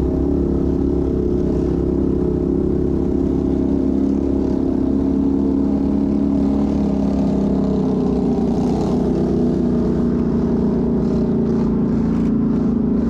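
Off-road vehicle engine running loud at a steady, fairly even throttle, with a few short clicks or clatters near the end.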